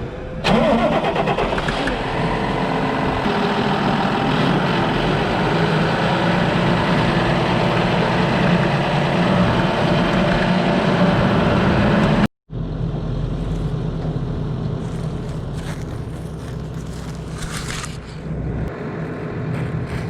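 Farm tractor engine running loud and steady, starting suddenly about half a second in. After an abrupt cut about twelve seconds in, machinery runs more quietly, with some clicks and rattles.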